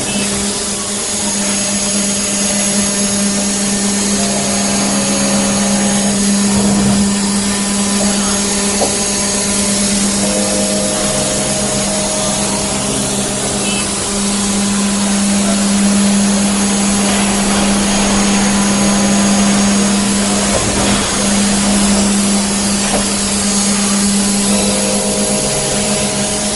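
5-axis CNC woodworking router running, with a steady loud hum under a constant rushing noise and short tones that come and go as it works.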